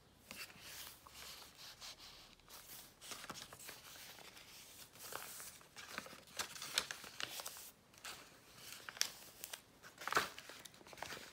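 Paper pages and card inserts of a handmade junk journal being turned and handled: irregular rustling and crinkling of paper, with a couple of louder brushes near the end.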